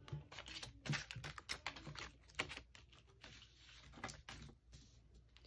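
Paper cut-out puppets on wooden sticks being picked up, moved and set down on a table: soft, irregular clicks, taps and paper rustles.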